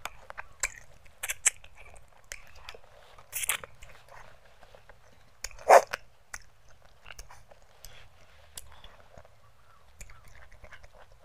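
A person chewing a mouthful of rice and fish masala with soft wet mouth clicks, while fingers mix the rice on a plastic plate. There is one much louder mouth sound a little past the middle.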